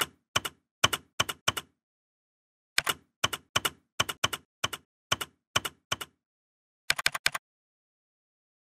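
Typing sound effect: sharp key clicks, one per letter, in uneven runs with a pause of about a second after the first half-dozen, ending in a quick flurry about seven seconds in.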